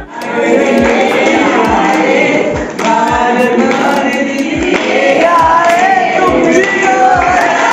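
Background music: a song with sung vocals over a steady drum beat.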